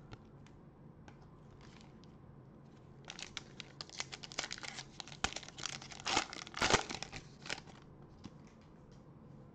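Foil wrapper of a Panini Prizm basketball card pack, crinkling and tearing as gloved hands open it. After a few faint clicks, the crackle starts about three seconds in and runs for some four seconds.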